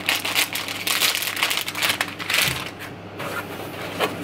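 Plastic wrapping crinkling and rustling as it is handled, in quick crackly bursts for about the first three seconds, then dying down, with one sharp tap near the end.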